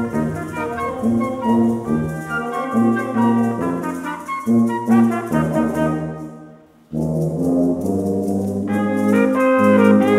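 Ensemble music led by brass instruments, playing held chords that change every half second or so. It fades out about six seconds in, and a new passage starts abruptly about a second later.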